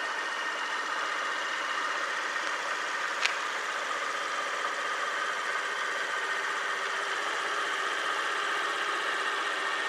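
Honda Dio scooter's small four-stroke single idling steadily, with a single sharp click about three seconds in.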